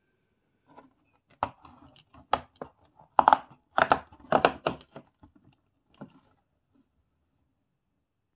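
Handling of the advent calendar's cardboard and a small plastic bag of LEGO pieces: a run of irregular crinkles, tears and clicks that stops a couple of seconds before the end.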